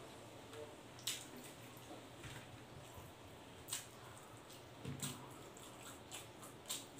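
Mukbang eating sounds of a man chewing roast pork leg (lechon pata) and rice by hand: sharp wet lip smacks and mouth clicks, about five of them, a second or more apart, over a faint room hum.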